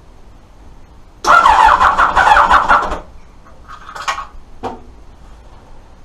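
Electric starter cranking the 1988 Kawasaki ZX-10's inline-four for under two seconds without it catching: the bike's no-start, which the owner traces to a fuel pump that gets power but delivers no fuel. A shorter, quieter noise and a click follow.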